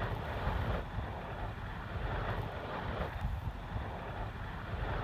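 Distant helicopter hovering, its rotor giving a low, rapid beat, with wind on the microphone.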